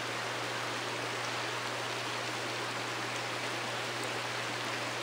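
Mountain stream flowing steadily, an even rushing of water, with a steady low hum underneath.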